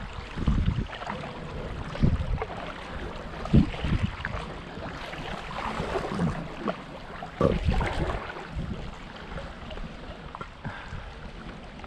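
Stand-up paddleboard moving through still canal water: water washing and splashing along the board's nose as it is paddled, with a few low thumps from the strokes.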